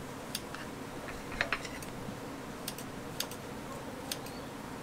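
Metal tongs and a cutting blade clicking and tapping as hotteok pieces are cut and dropped into a paper cup. The clicks are sharp and irregular, about a dozen of them, with a small cluster about a second and a half in, over a steady background hiss.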